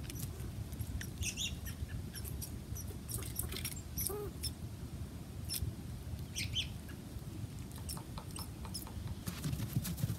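Grey squirrel feeding in bird seed on snow, close by: irregular small clicks and crackles of seeds and husks being cracked and pawed, over a steady low rumble.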